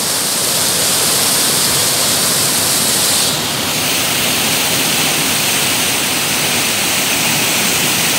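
Turbulent stream water rushing and foaming through and around a bamboo fish trap: a loud, steady rush of water. The hiss turns a little duller after about three seconds.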